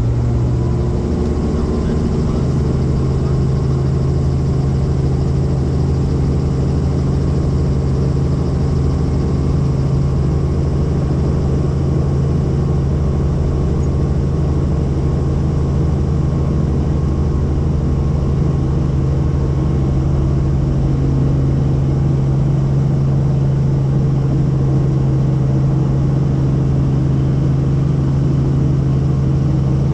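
Helicopter engine and rotors running with a loud steady drone; the pitch steps up slightly about a second in, then holds.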